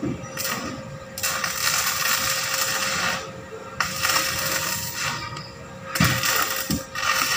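Stick (arc) welding with a small inverter welder: the arc crackles and sizzles in three runs of one to two seconds each, with short pauses between them.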